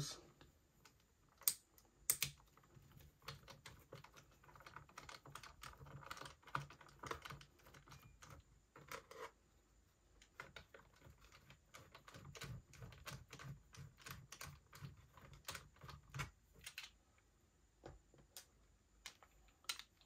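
Faint, scattered clicks and taps of a hand screwdriver turning out the small screws on the plastic underside of a Dell Latitude E6440 laptop, with light scraping between them.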